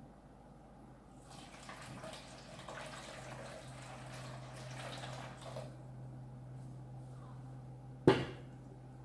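Water pouring and splashing into the Smartmi evaporative humidifier for about four seconds over a low steady hum, then a single sharp click near the end.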